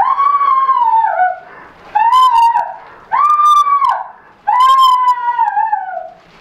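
Four long, high wailing notes, each about a second long, that bend slightly in pitch; the first and the last slide down at the end.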